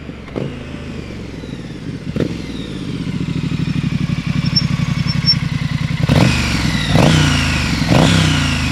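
Triumph Street Scrambler 900's water-cooled parallel-twin engine, breathing through a Vance & Hines slip-on silencer, growing louder as the bike approaches. From about six seconds in, the throttle is blipped three times about a second apart, each rev falling back to idle.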